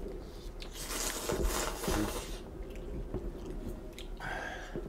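A person slurping and chewing kimchi ramen noodles: a long slurp about a second in, a shorter one near the end, and wet chewing between.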